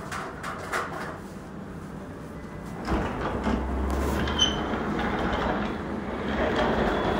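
Heavy wooden entrance door being pulled open by its long bar handle: a low rumble as it moves, with a sharp click partway through.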